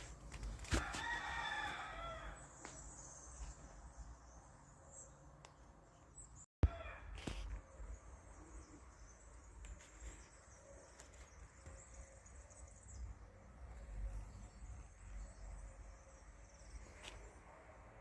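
A domestic cat's long drawn-out meow about a second in, the insistent morning call of a cat waking its owner. Soft rustling and a few faint knocks follow, with one sharp click near the middle.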